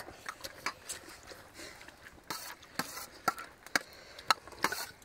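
Kitchen utensils knocking in a run of irregular sharp knocks and clacks, about three a second.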